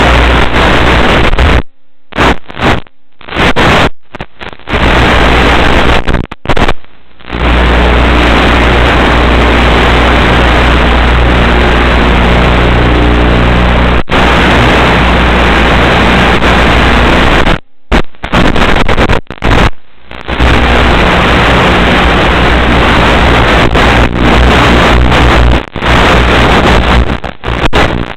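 Loud, even hiss from an analog 5.8 GHz FPV video link's audio, with a steady low hum beneath it. It drops away abruptly several times in the first seven seconds and twice more later, then comes straight back.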